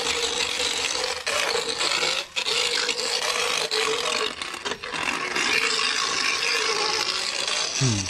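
Motorized equine dental float running with a steady whine, its spinning head rasping and grinding against a horse's teeth as they are floated. It breaks off briefly twice.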